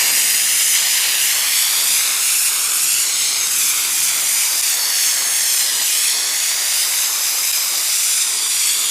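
Compressed-air spray gun shooting Lizard Skin sound-deadener coating, a thick material that does not atomise like paint and sprays more like truck bed liner: a loud, steady hiss of air held without a break.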